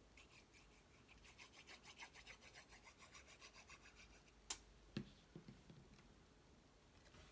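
Fingers rubbing a glued cardstock piece down onto a paper card in quick, even strokes, about four a second. The rubbing stops, followed by one sharp click and a softer knock with a few light taps.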